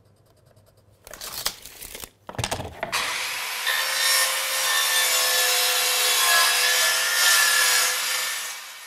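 A Silverline mitre saw (chop saw) runs and cuts across a laminate floor plank for about five seconds, starting about three seconds in and dying away near the end. A few short knocks come before it as the plank is set against the saw.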